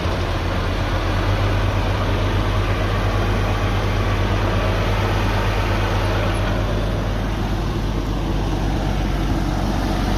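1951 Oliver 77 tractor's six-cylinder engine running steadily.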